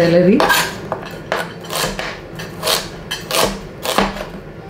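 Chef's knife chopping celery on a cutting board: a sharp knock of the blade on the board about every two-thirds of a second.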